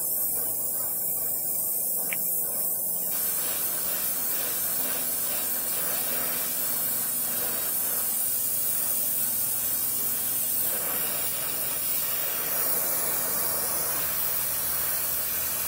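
Oxy-fuel brazing torch flame hissing steadily while a refrigerant line joint is brazed with filler rod.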